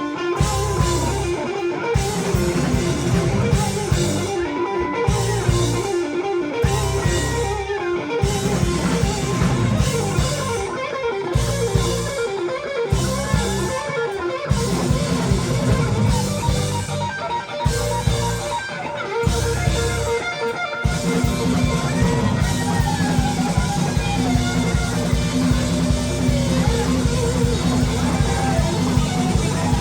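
Live rock band playing an instrumental passage: electric lead guitar bending and sliding notes over drums and bass. About two-thirds of the way through, the drums and bass settle into a continuous driving beat.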